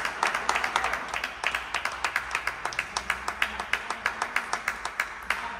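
Table tennis balls clicking off bats and tables in a sports hall: a continuous stream of sharp, irregular ticks, several a second.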